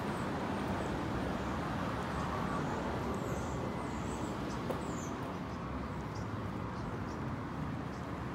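Steady street traffic noise from cars on a nearby road, with a few short high chirps in the first half.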